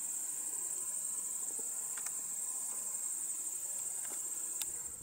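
Steady, high-pitched chorus of insects shrilling without a break, with a few faint clicks.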